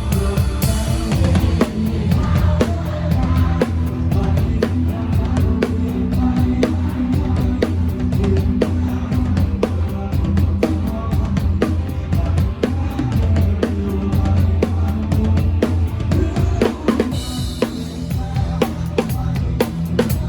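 Live band music heard close to the drum kit: kick drum, snare and cymbals playing a steady beat over bass notes, with a brighter cymbal wash near the end.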